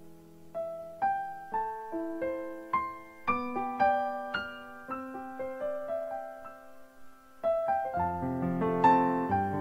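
Background piano music: a slow melody of single notes, each struck and fading, with fuller chords coming in near the end.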